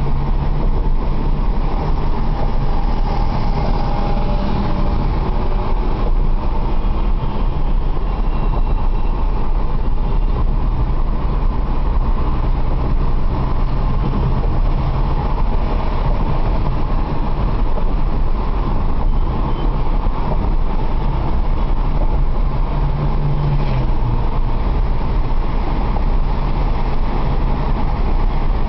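Steady drone of a car driving at speed, heard from inside the cabin: engine hum and tyre and road noise, with the engine note shifting in pitch now and then.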